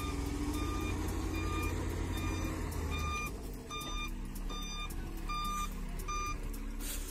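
A vehicle back-up alarm beeping steadily, about one beep every three-quarters of a second, over the low rumble of a heavy truck's engine. The engine rumble eases about three seconds in, and the beeps stop shortly before the end.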